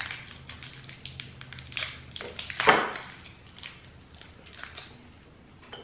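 Crinkling and crackling of an individually wrapped Hi-Soft caramel's plastic wrapper being worked open by hand: a string of short, sharp crackles, with one louder crackle a little before halfway.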